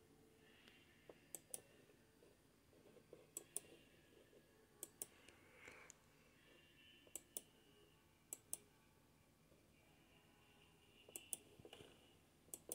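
Near silence with sharp clicks scattered through it, mostly in close pairs about a fifth of a second apart, several times over.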